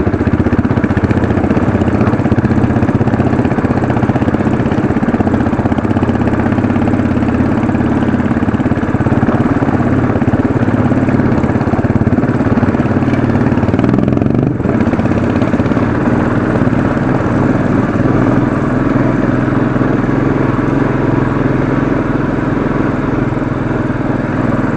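Royal Enfield Classic 500's single-cylinder engine running steadily under load up a steep dirt climb. The engine briefly eases off about halfway through, then pulls again.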